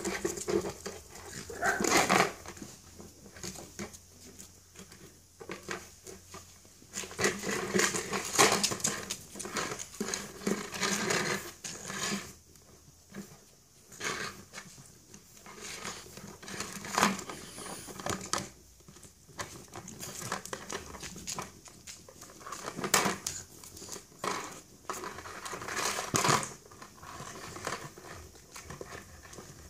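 French bulldog puppies shoving and chewing a hollow plastic pot, which scrapes and knocks over concrete paving stones in irregular bursts with short pauses.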